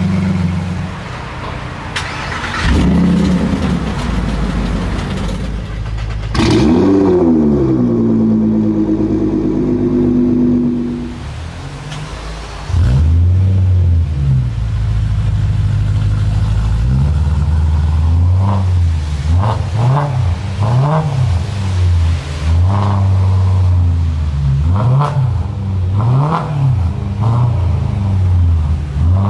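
A Lamborghini Aventador's V12 idling, then revved once with the pitch falling back. About halfway through, a BMW M3 E92's V8 starts with a loud flare, settles to idle and is then blipped in a series of short revs.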